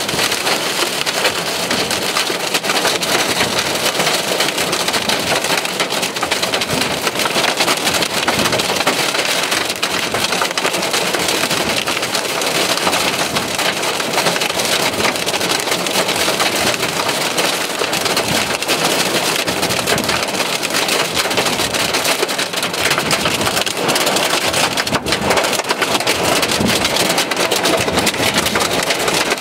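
Heavy rain and hail hitting a car's roof and windshield, heard from inside the car: a loud, steady clatter of many small hits.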